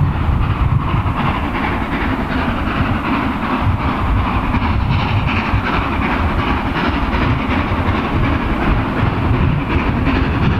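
SDJR 7F 2-8-0 steam locomotive No. 53808 working a train, its exhaust beats running on steadily and loudly, mixed with the rumble and clatter of the train on the rails.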